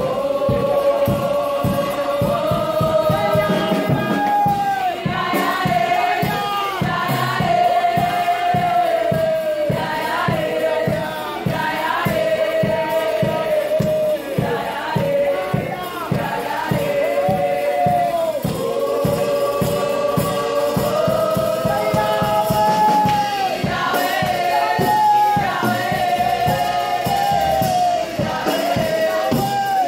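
Gospel worship song: voices singing a held, wavering melody over a steady beat.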